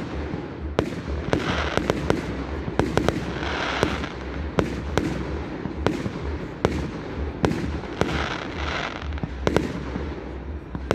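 Aerial fireworks bursting in the sky: a quick, irregular run of sharp bangs, with stretches of hiss between some of them.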